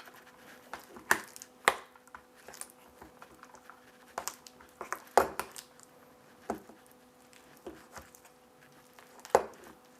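Herb and garlic cream cheese and shredded cheddar being mixed in a bowl by hand. A utensil clicks and knocks against the bowl now and then, about a dozen light strokes spread irregularly through the mixing.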